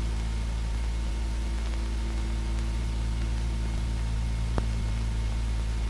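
Steady hiss and low hum of an old film soundtrack, with one faint click about four and a half seconds in.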